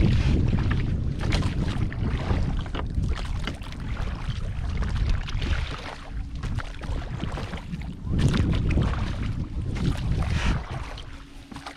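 Wind buffeting the microphone and water noise as a small folding boat moves across the lake, a dense rumble that dies away near the end.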